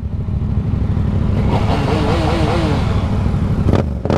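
Motorcycle engine running low and steady at slow speed in traffic, with a brief wavering rise and fall in pitch in the middle and two short knocks near the end.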